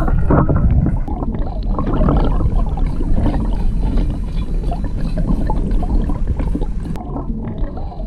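Egret Baits Ghost Walker topwater lure being walked across the surface, heard from underwater in a swimming pool: a steady low churn of water with a run of quick, faint clicks from the lure. Its underwater sound is better than average but not spectacular.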